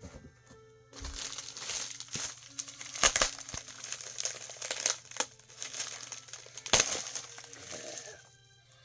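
Packaging being handled and crinkled while comics are unpacked from a shipping box, with a few sharp crackles, the loudest about three seconds in and near seven seconds.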